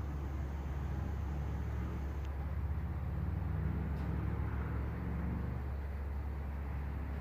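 Wind rumbling on the microphone: a steady low, rough noise with no distinct events.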